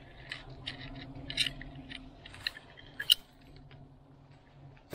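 Dry vines, twigs and dead leaves crackling and snapping as thick brush is pushed aside by hand, a handful of short sharp snaps with the loudest about three seconds in.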